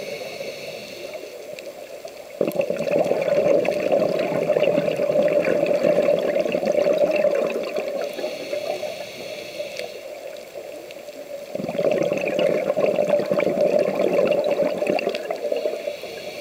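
Scuba diver breathing through a regulator underwater: a hiss on the inhale, then a long burst of bubbling exhaust on the exhale. Two such breaths, the loud bubbling starting suddenly a couple of seconds in and again about two-thirds of the way through.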